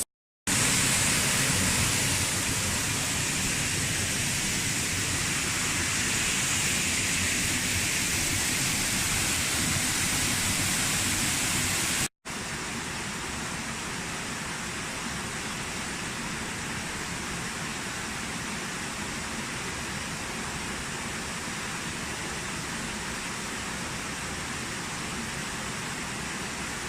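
Waterfall pouring into its pool: a steady, loud rush of water. It drops out for an instant about twelve seconds in and comes back a little quieter.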